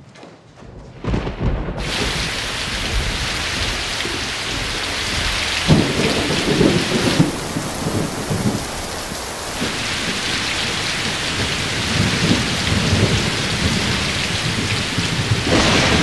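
Heavy rain pouring in a thunderstorm, starting about a second in, with rolling thunder rumbling about six seconds in and again later.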